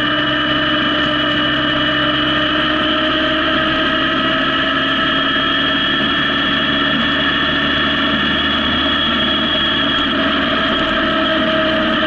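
Honda CB750 motorcycle engine running at a steady cruise, its pitch drifting slightly up and down, over a steady rush of wind noise.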